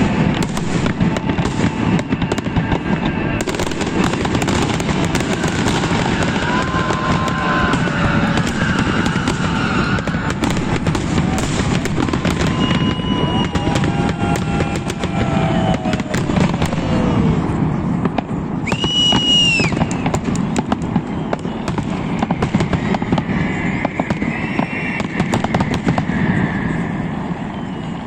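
Salute fireworks display: a continuous dense barrage of bangs and crackling. Several whistles sound over it, a strong one about nineteen seconds in.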